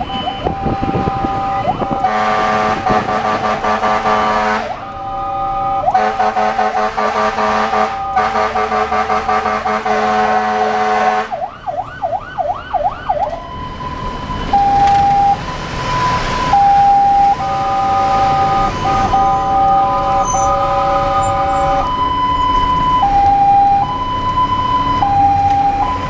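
Fire engine running with its warning devices on: several long horn blasts with short breaks, then a quick warbling yelp of the siren, then a two-tone hi-lo siren alternating steadily between a higher and a lower note.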